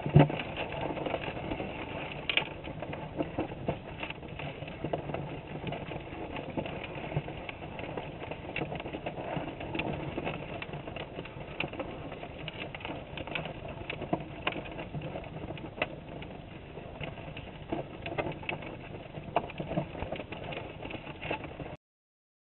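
Crawdads crawling over a wire-mesh minnow trap, heard underwater through a GoPro's waterproof housing: a steady muffled rumble with frequent small clicks and taps, and a louder bump at the start.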